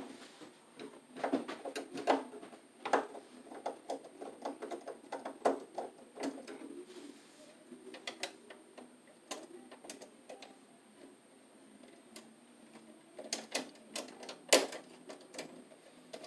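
Irregular clicks, snaps and scrapes of wire strippers and stiff 10-gauge copper wire being worked in a metal breaker panel, stripping the insulation and fitting the wire to the breaker, with a sharper click near the end.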